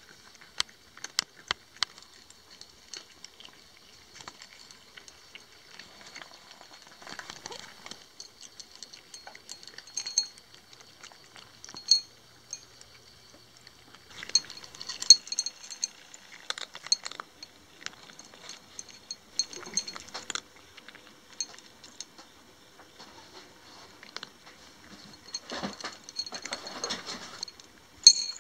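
Cats crunching dry kibble out of stainless-steel bowls: sharp clicks as kibble and teeth tap the metal, coming in bursts of busy chewing with short lulls between.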